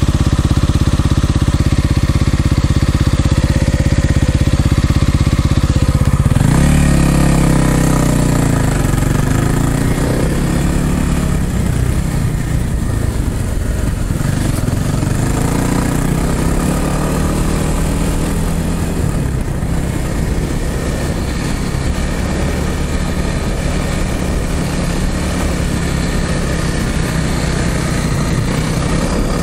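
Dirt bike engine running under a rider: it holds a steady note for about six seconds, then revs up and down with the pitch rising and falling repeatedly as the bike is ridden along the trail.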